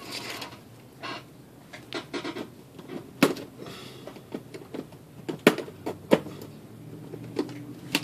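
Scattered clicks and light knocks of small hand tools being handled and set down, with a few sharper clicks about three, five and a half, six and seven and a half seconds in.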